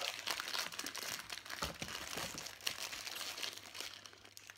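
Crinkly candy-bar wrapper being handled and opened, a dense irregular crackling.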